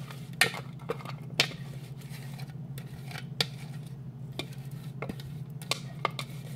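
A utensil knocking and scraping against a plastic food processor bowl as chopped parsley and onion are emptied out of it into a mixing bowl: a string of sharp separate knocks, the loudest about half a second and a second and a half in, over a steady low hum.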